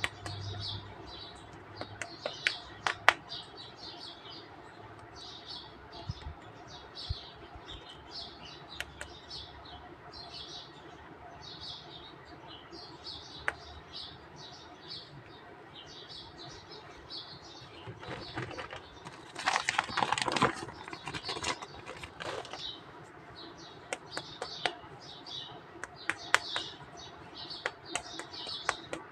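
Light clicks and taps of small plastic toy figures and miniature trees being handled and set down, over a steady background of birds chirping. A louder rustling burst comes about two-thirds of the way through.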